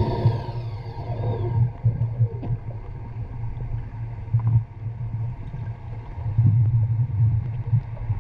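Crewed submersible's electric thrusters running underwater: a low, uneven rumble that rises and falls, with a short falling whine in the first second or so.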